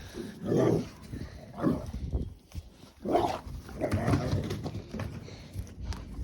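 Playful dog vocalising in several short bursts, about four, a second or so apart.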